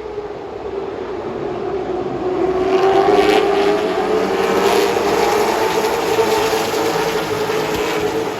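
Late model stock car's V8 engine running at racing speed, getting louder and rising slightly in pitch over the first three seconds as it accelerates, then holding a steady high-revving note.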